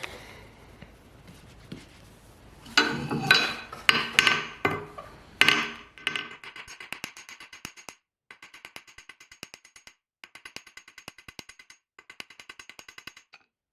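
Flat-faced hammer striking steel tie wire cold on an anvil, drawing its ends out flat to a point: a few heavier blows about three seconds in, then a quick, even run of light taps, several a second, each with a metallic ring, pausing briefly every couple of seconds.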